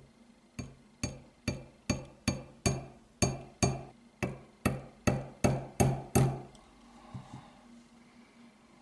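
Small hammer tapping a roll pin into a Smith & Wesson M&P pistol slide to hold the extractor: about fifteen light, evenly paced strikes, a little over two a second, each with a brief ring, growing louder toward the end. A couple of faint taps follow about a second later.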